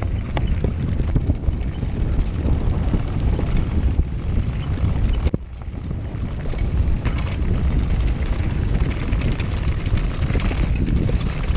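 Wind buffeting the microphone of a helmet camera during a fast mountain-bike descent, with tyres crunching over gravel and the bike rattling in many small clicks. The wind drops briefly about five seconds in.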